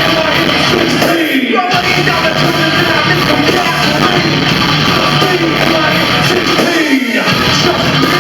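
Loud live band music with yelled and sung vocals over guitar. The bass drops out briefly twice, about a second in and again near seven seconds.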